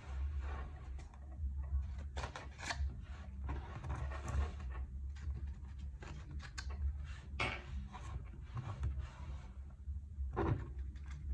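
Thin plastic water bottle crackling and clicking under the fingers as kinetic sand is pressed and packed into it, with soft scraping of the sand; irregular clicks and rustles over a steady low hum.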